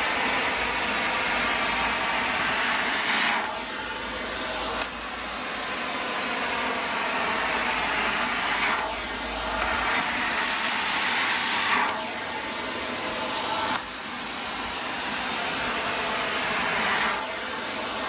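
Eureka Forbes Sure from Forbes 700-watt compact canister vacuum cleaner running with its floor tool on extension tubes, vacuuming a tiled floor. Its motor makes a steady rushing whine that dips and swells every few seconds as the tool is pushed back and forth. The machine is somewhat noisy.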